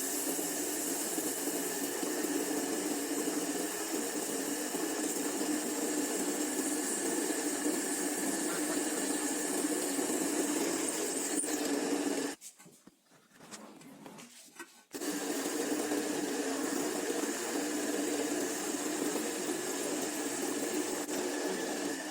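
An electric power tool's motor running steadily with a constant whine. It stops suddenly about halfway through and starts again a couple of seconds later.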